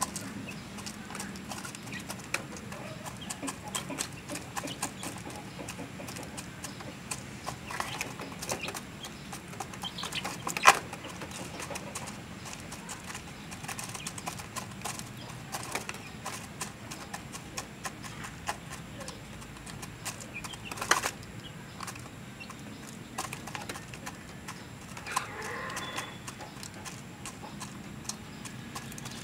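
Month-old chicks in a wire cage pecking at a plastic-bottle feeder, giving irregular light taps and clicks, with two louder knocks about ten and twenty-one seconds in.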